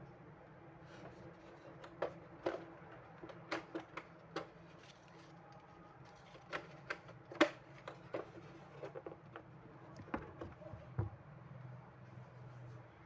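Irregular clicks and taps from a Posiflex thermal printer and its parts being handled during repair, with one sharper knock about seven and a half seconds in.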